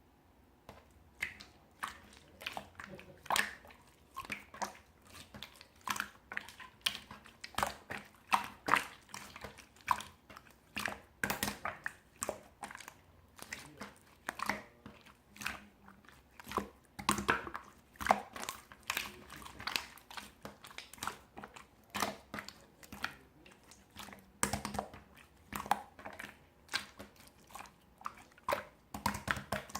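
Slime being squished and kneaded by hand: an irregular string of sticky clicks and pops, about two or three a second.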